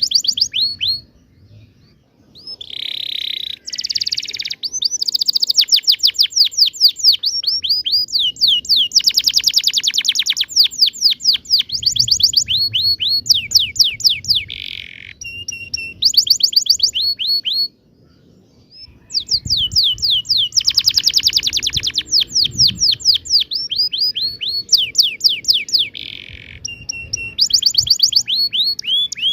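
Domestic canary singing long, vigorous song phrases full of rapid rolling trills: fast runs of repeated high sweeping notes with brief chirps between. The song breaks off twice, about two seconds in and again a little past halfway.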